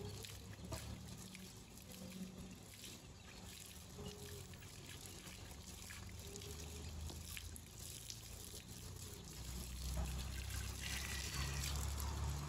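Water from a garden hose trickling and splashing onto a horse's legs as they are hosed down to cool them. It grows a little louder near the end.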